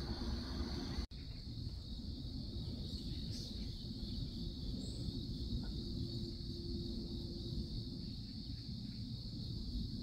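Insects, likely crickets, chirring steadily in a high band over a low rumble. The sound drops out for an instant about a second in.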